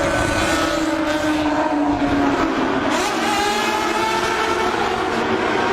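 Motorcycle engine running under way, its pitch easing down during the first few seconds and then climbing again about three seconds in as the throttle opens.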